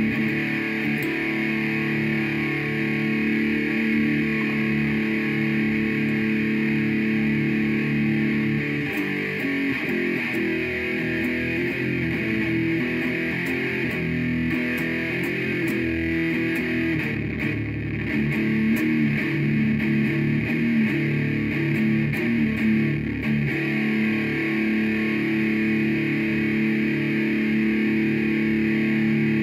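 Jackson DX10 electric guitar being played: ringing, sustained chords and picked notes, with the pattern changing about nine seconds in and settling into held chords near the end.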